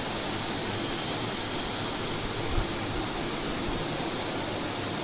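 Steady, even background hiss of room noise, with one soft low thump about halfway through.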